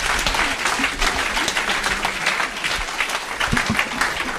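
Audience applauding, many people clapping steadily together.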